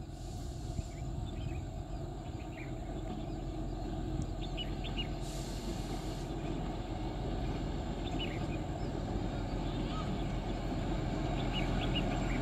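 Low rumble of a Kalka–Shimla narrow-gauge train approaching, growing steadily louder, with small birds chirping now and then.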